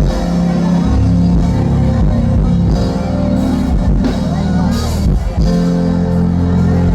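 Live band music played loud: heavy bass, drum kit with cymbal crashes, and guitar.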